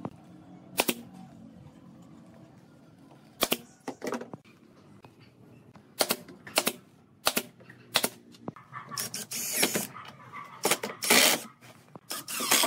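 Pneumatic brad nailer firing nails into a pine frame: about seven sharp single shots, a second or more apart. Near the end comes a cordless impact driver running in several short bursts as it drives screws into the wood.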